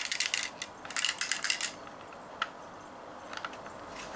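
A loose plastic BB rattling around inside a Daisy Model 340 spring-powered BB pistol as the gun is shaken. There are two bursts of quick rattling in the first couple of seconds, then a few single clicks.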